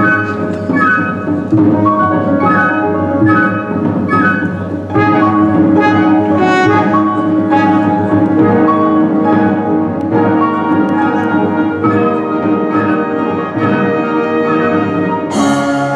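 Live symphony orchestra playing the introduction to a song, woodwinds and brass over sustained lower parts in repeating phrases, with a cymbal crash near the end.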